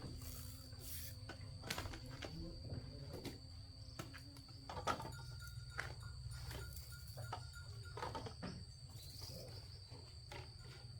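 Irregular short knocks and clicks over a steady, high-pitched insect drone.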